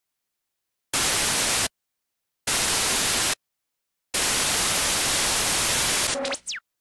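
Bursts of TV-style static hiss, three in a row with dead silence between them, the third the longest, ending in a few quick falling sweeps.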